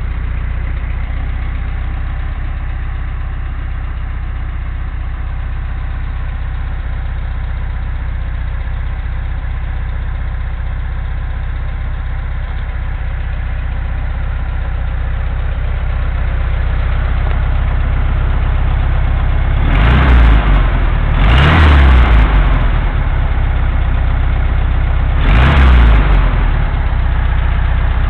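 Air-cooled VW flat-four engine running on a newly fitted 034 distributor, idling steadily. Near the end it is revved briefly three times: twice close together, then once more a few seconds later.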